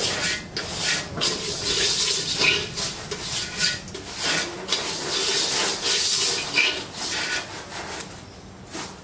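Dry grains being swished and scraped around a metal pot with a bundle of thin sticks, in quick repeated strokes. The sound drops away about eight seconds in, as the stirring stops.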